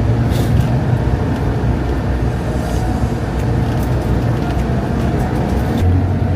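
A car driving along a road: steady engine and road rumble.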